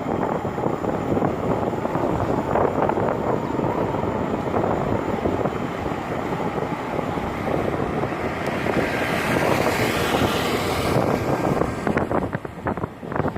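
A motor running steadily under wind noise on the microphone, with a rushing hiss that builds and then cuts off near the end.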